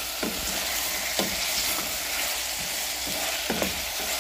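Chopped carrots, green beans, onion and tomato sizzling as they are sautéed in oil in a stainless steel pot, stirred with a spoon. A few scrapes and knocks of the spoon against the pot, about a second in and twice near the end.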